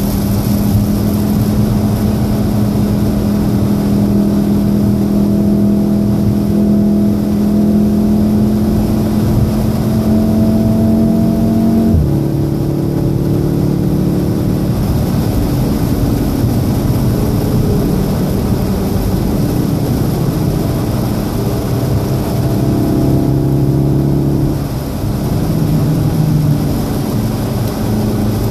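2014 VW Golf VII R's turbocharged 2.0-litre four-cylinder engine heard from inside the cabin, pulling hard with its note slowly climbing. About twelve seconds in the pitch drops suddenly with an upshift. Later the note falls and wavers as the car slows, over a steady hiss of rain and spray from the wet road.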